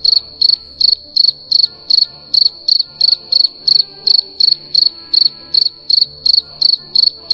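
Cricket chirping sound effect: evenly spaced high chirps, about three a second. It is the stock cue for a silent, bored audience.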